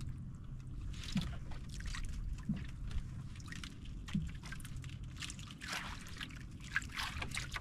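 Water sloshing and trickling around a small fishing boat, with scattered light splashes and knocks over a faint steady low hum.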